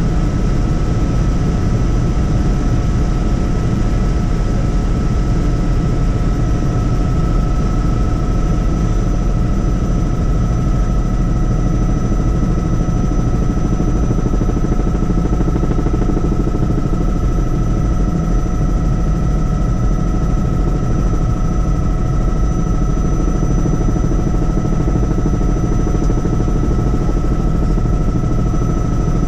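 Helicopter in flight: a steady heavy rumble of rotor and engine with constant whining tones over it, unchanging throughout.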